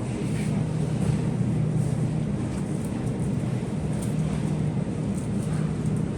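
Steady low hum and hiss of a grocery store's background, with a few faint clicks and rustles.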